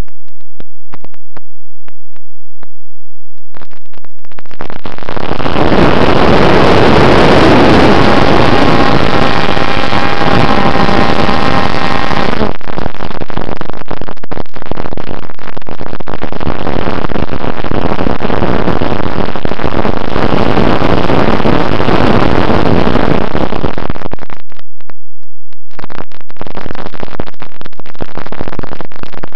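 Noise heard through the onboard camera's microphone on a Bixler RC plane. A loud rush of wind and the electric motor and propeller comes in about four seconds in, with a faint steady motor whine for a few seconds, and drops away near the end. Scattered clicks come before and after it.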